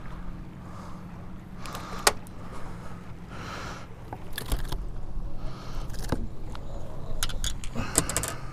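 A hooked largemouth bass being reeled in and swung aboard a bass boat: rod, reel and line handling noises with a sharp knock about two seconds in, then a quick run of clicks and knocks near the end as the fish lands on the deck.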